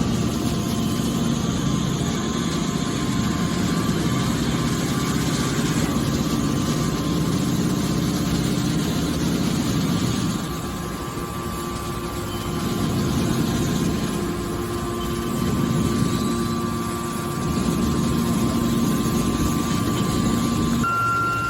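Hydraulic scrap metal baler running: a steady machine hum with a thin high whine held underneath, easing off for a couple of seconds about ten seconds in and then building again.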